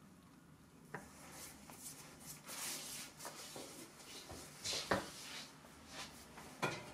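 Faint handling noise: soft rustling with a few light clicks and taps, the clearest about a second in and again near five seconds.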